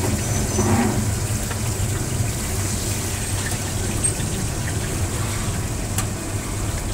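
Steady low hum with an even hiss, like machinery or a gas flame running in the background, with no clear single event.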